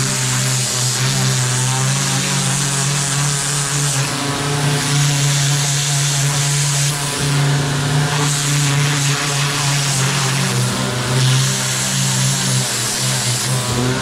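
HiKOKI FAW110 electric pressure washer running with a steady motor hum, its turbo-nozzle jet hissing as it blasts a urethane-coated work glove on a stainless steel sink top. The hiss swells and drops several times as the spray sweeps over the glove.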